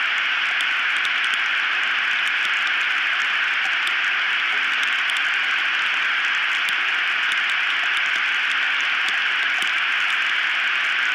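Steady, even static hiss from the nest camera's audio feed, with faint scattered clicks.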